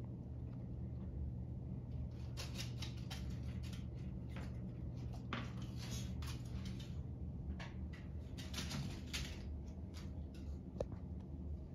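A cat playing on a hardwood floor: irregular light scratches, rustles and clicks as it paws and scrabbles at a small object, over a steady low hum.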